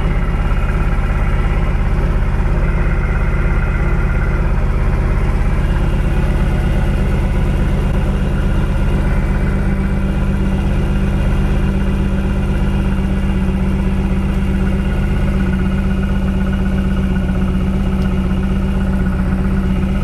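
Lotus Esprit's 3.5-litre twin-turbo V8 idling steadily and missing: two cylinders have no spark, so it runs on six.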